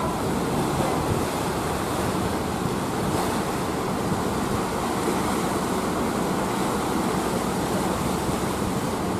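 Steady low rumble and churning water from the JR Miyajima ferry Nanaura Maru as it manoeuvres alongside the pier.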